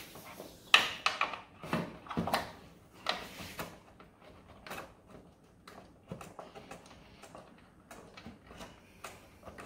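Handling noise as a multi-core power cable is pushed and worked through the cable entry into the plastic casing of a BP Pulse home EV charger. It is a string of irregular clicks and knocks, the sharpest about a second in, thinning to softer ticks and rubbing later on.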